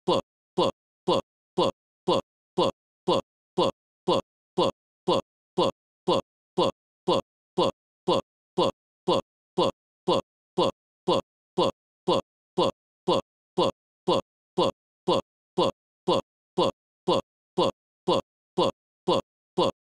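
A short blip falling in pitch, repeated identically about twice a second with silence between: a playback glitch looping a tiny fragment of audio, as in a corrupted video file.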